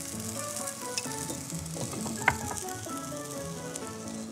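Food sizzling and frying in a pan on the hob, a steady hiss, with one sharp clink of a utensil about two seconds in. Light background music plays underneath.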